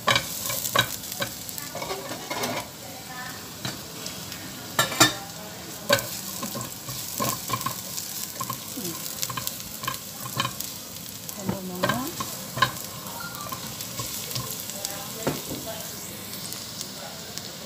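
Minced garlic sizzling in hot oil in a non-stick saucepan, stirred with a silicone spatula that scrapes and taps against the pan. A steady crackle runs throughout, with scattered pops and a few louder knocks.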